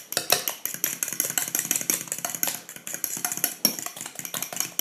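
A fork beating eggs and cream in a glass mixing bowl: rapid, uneven clicking of the fork against the glass, several strokes a second.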